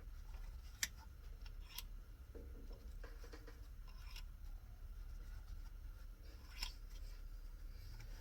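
A few light, sharp clicks and faint handling noises as small carburetor parts are picked over and set down, over a faint, steady low hum.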